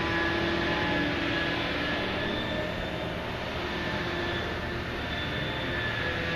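Heavy diesel and hydraulic machinery of a Liebherr P995 backhoe dredger running steadily, a constant mechanical din with a faint high whine over it.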